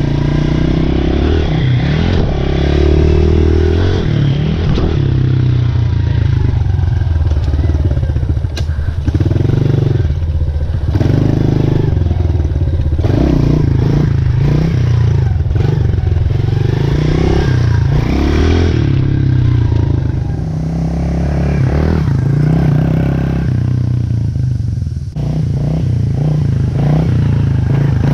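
Pit bike engine revving hard and easing off again and again as it is ridden over dirt jumps, its pitch rising and falling every second or two. The engine note drops away briefly near the end, then picks up again.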